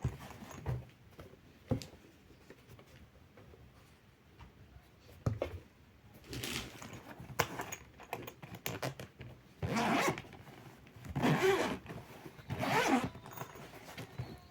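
Scattered clicks and knocks of something being handled, then four short rasping scrapes of about a second each in the second half.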